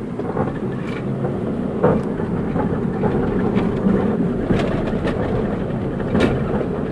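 Car driving, a steady run of engine and tyre noise with a few sharp knocks and rattles about two, four and a half and six seconds in.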